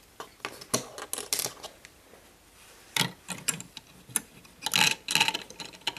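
Plastic Lego pieces clicking and rattling as a minifigure is put into a small prison cell and its barred door is handled: clusters of light clicks, the busiest about a second in and again from about three seconds on.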